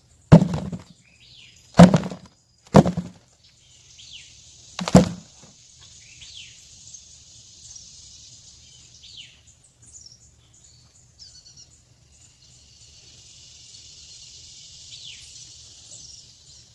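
Potatoes tossed into a bucket: four hard thunks in the first five seconds. After that, birds chirp over a faint, steady high insect hiss.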